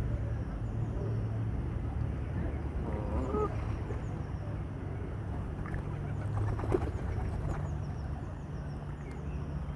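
Geese honking among waterfowl crowding in to be fed, with calls about three seconds in and again around six to seven seconds, and many small high chirps throughout. A steady low hum runs underneath.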